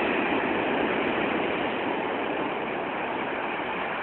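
Steady rush of breaking surf washing up on a sandy beach.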